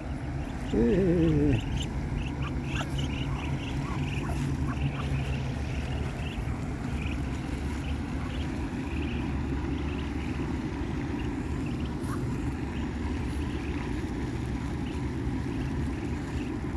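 Muscovy ducklings peeping softly while they peck at feed, over a steady low rumble. About a second in comes a loud falling, wavering call.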